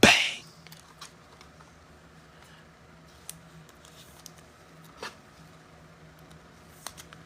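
A sharp knock at the start, then quiet handling of trading cards and foil packs: a few faint clicks and rustles over a low steady hum.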